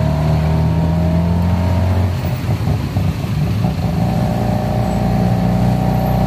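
A tuk-tuk's small engine running as it drives, heard from inside the open passenger cab. The engine note breaks up and drops about two seconds in, then settles back into a steady hum at a slightly higher pitch from about four seconds, rising gently near the end.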